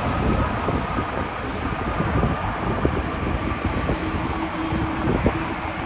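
Airbus A330-200 airliner on its landing approach, its jet engines making a steady low rumble with faint whining tones above it.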